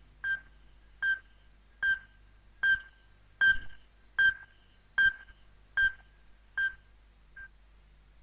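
Epauletted fruit bat calling: about ten sharp, metallic clinks, evenly spaced a little under a second apart, the last one faint.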